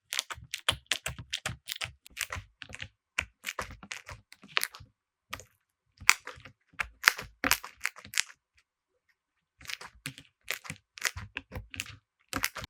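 Slime being squeezed and pressed, giving quick runs of sharp crackling and popping clicks with short silent pauses between them.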